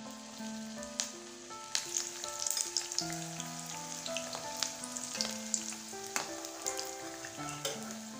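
Gram-flour-battered cabbage pakoras deep-frying in hot oil: a steady sizzle with frequent sharp crackles. Background music of slow held notes plays over it.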